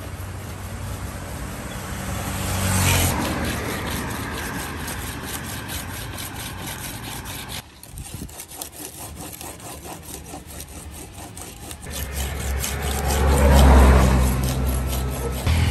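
A large curved fish-cutting knife sharpened by hand, its blade rubbed back and forth in quick rasping strokes across a flat abrasive disc. A vehicle passes near the end, the loudest sound.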